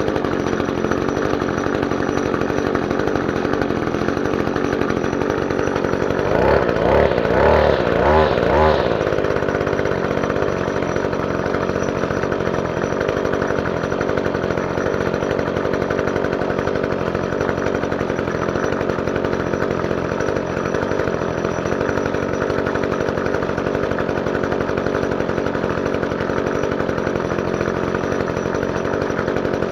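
Gas string trimmer engine running steadily, revved briefly a few times about six to nine seconds in.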